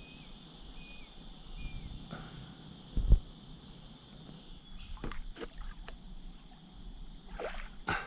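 Noisy miners calling: a few short, repeated chirping notes in the first second and a half, over a steady high drone of insects. A dull thump about three seconds in is the loudest sound, followed by scattered light knocks and clicks.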